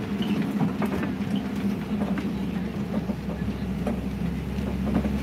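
Open-sided safari truck driving slowly along a rough road: a steady engine drone with scattered knocks and rattles from the vehicle body.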